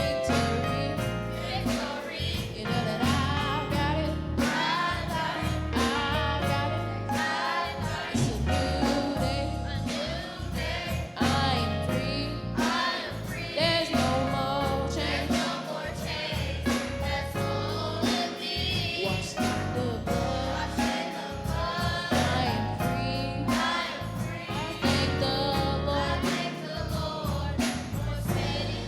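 A choir singing a gospel song with a band, over a strong bass line and a steady beat.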